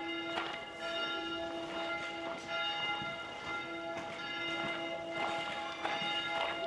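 Church bells ringing, struck again and again, several tones at once hanging on between the strikes.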